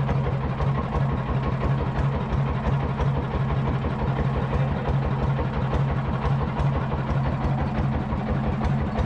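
Background music with a steady beat, laid over the low, even running of a boat's engine.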